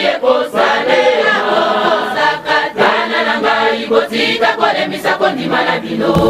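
Background music: a choir of voices singing a song in Lingala.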